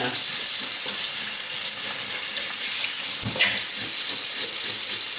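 Cold-water kitchen tap running steadily into a stainless steel sink, the stream splashing over a whole fish on a chopping board, with a brief knock a little past the middle.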